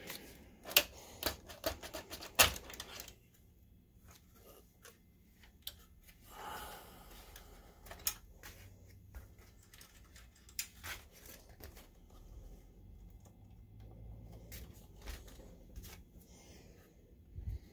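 Sharp clicks and light clatter of a projector's main circuit board being worked loose and lifted out of its plastic housing. A cluster of clicks comes in the first few seconds, then scattered softer clicks and a brief rustle.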